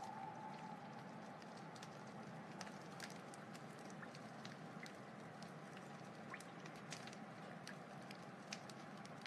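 Wood fire crackling: a steady soft hiss with irregular small pops and snaps scattered throughout.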